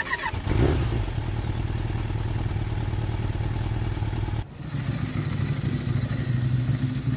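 Motorcycle engine coming to life about half a second in and running steadily as the bike is ridden off, with a brief sudden dip in level about four and a half seconds in.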